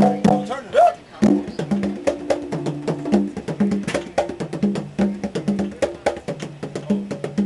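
Two percussionists playing a fast, steady rhythm on hand percussion: quick sharp clicks over repeated low pitched drum strokes. The playing thins out briefly about a second in, then picks up again.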